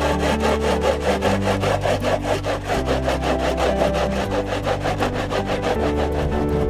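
Fresh sweet-corn cobs rubbed back and forth on a punched-hole aluminium grater, a fast, even rasping rhythm of scraping strokes as the kernels are grated to a pulp.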